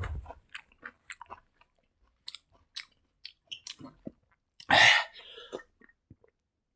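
Close-up mouth sounds of a person chewing a mouthful of rice and side dishes: soft, wet clicks and smacks, with one louder, fuller noise just before five seconds in.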